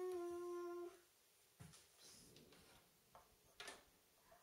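A steady pitched hum with overtones that stops about a second in, followed by a few faint clicks and handling knocks, the sharpest about three and a half seconds in as a mains plug is handled at a wall socket.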